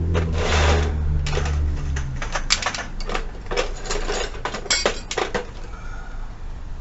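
Small metal hand tools clinking and tapping against metal in a quick, irregular run of clicks and knocks, while work starts on the split pin of a motorcycle's rear brake pedal. A low hum is heard under the first two seconds.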